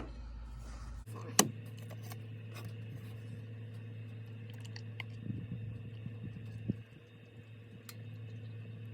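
Handling of a plastic motor-oil jug: a sharp click about a second and a half in, then light taps and scrapes, over a steady low hum.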